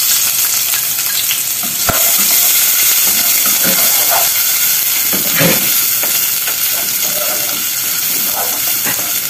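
Chopped onion sizzling in hot olive oil in a nonstick saucepan, freshly added and being sautéed, with a steady frying hiss. A wooden spoon stirs and scrapes through it, with a sharp knock against the pan about two seconds in.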